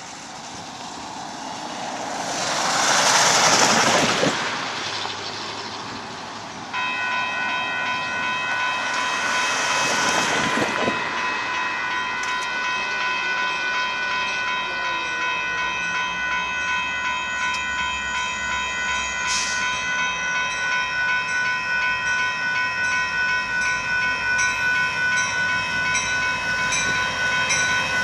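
Railroad grade-crossing warning bell starts ringing suddenly about seven seconds in and rings on steadily, in quick even strokes, as the crossing activates for approaching diesel locomotives. Before it starts there are two broad rushing swells, the first and loudest about three seconds in.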